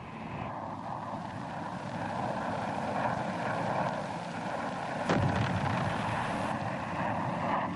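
Steady drone of an aircraft engine, with a single blast about five seconds in.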